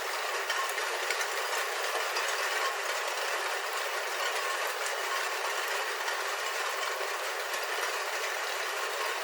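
Steady rain on a roof heard from inside: a dense, even patter of drops.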